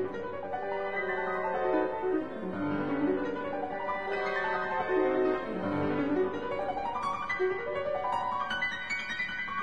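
Instrumental background music led by piano, with runs of notes falling and then rising.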